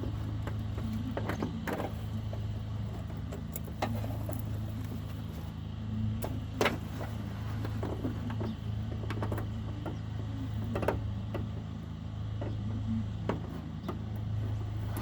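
Scattered light clicks and knocks of plastic and metal parts being handled while a bulb is worked into the socket behind a truck's front light housing, over a steady low hum.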